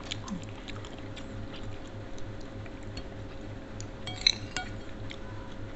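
Metal spoon clinking and scraping lightly on ceramic plates during a meal, with a short cluster of sharper clinks about four seconds in, over a faint steady hum.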